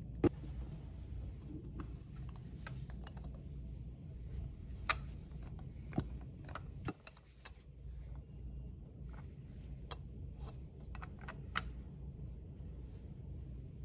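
Scattered light clicks and taps of a metal gooseneck phone holder's clamp head and braided arm being handled, the sharpest click just after the start, over a low steady background hum.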